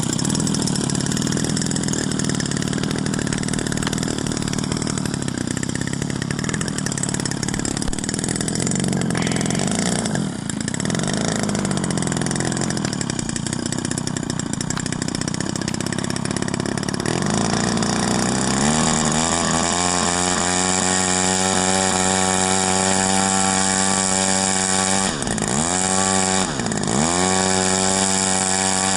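Radio-controlled model biplane's 50 cc gasoline engine running. About two-thirds through it revs up to a steady, higher pitch, then its revs dip and recover twice in quick succession, and ease off again near the end.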